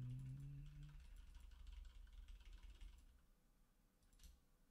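Soft computer-keyboard typing and clicks, faint, with a low hummed 'hmm' from a man's voice trailing off about a second in.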